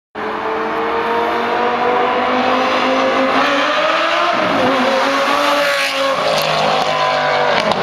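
Lamborghini Gallardo V10 with a Larini aftermarket exhaust accelerating hard past, its engine note climbing in pitch for about four seconds, then dropping lower as the car goes by.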